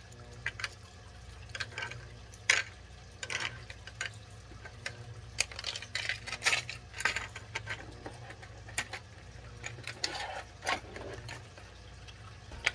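Hands handling plastic packaging and small hard items on a desk: irregular clicks, crinkles and light clatter, the sharpest about two and a half seconds in and a busy stretch around six to seven seconds, over a low steady hum.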